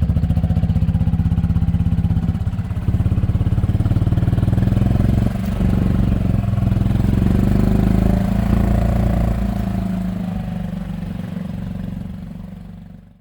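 Golf cart engine running steadily with a low pulsing drone, fading out near the end.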